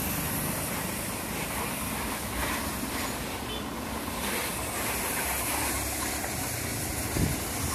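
Pressure-washer jet spraying onto a scooter and splashing off the bodywork and wet concrete: a steady hissing rush of water. A short thump near the end.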